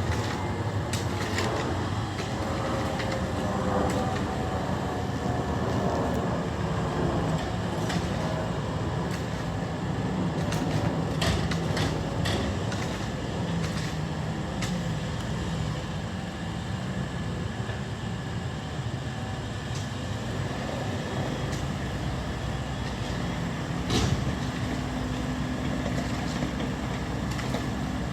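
Steady low rumble of engines running, with scattered light clicks and one sharp knock near the end.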